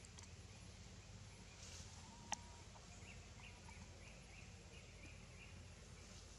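Faint outdoor ambience, close to silence, with a steady low hum. There is one sharp click a little over two seconds in, then a run of faint, short, high chirps in the second half.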